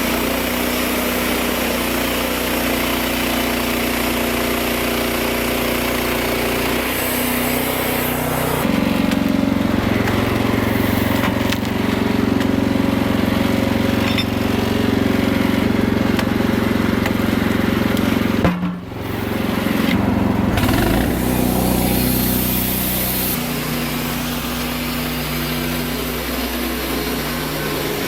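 Wood-Mizer LX55 portable sawmill's engine running steadily. It gets louder about a third of the way in, as if under load, breaks off briefly about two-thirds through, and eases back near the end.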